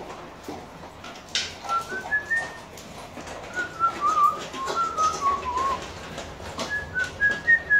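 A person whistling a wavering tune of short, trilled notes. The whistling starts a couple of seconds in, pauses briefly, then picks up again near the end, with scattered light clicks and knocks underneath.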